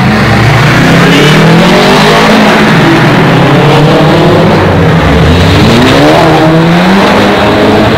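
Cars accelerating hard one after the other through a concrete underpass: a Subaru Impreza's turbocharged flat-four pulling past, then a Volkswagen Golf pulling away. The engine notes climb several times, loud and echoing off the tunnel walls.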